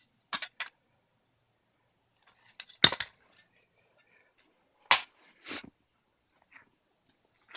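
Scattered short clicks and knocks of rifle accessories being handled and set down: one click just after the start, a louder cluster about three seconds in, and another knock near five seconds, followed by softer rustles.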